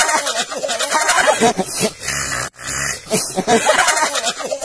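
A man imitating animal noises with his own voice: a quick string of short cries that rise and fall in pitch, breaking off briefly about two and a half seconds in.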